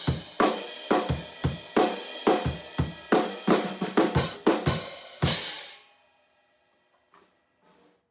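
Drum kit played in a steady beat, with snare, bass drum and hi-hat under budget Iznik cymbals, stopping about five and a half seconds in as the cymbals ring out. Two faint knocks near the end.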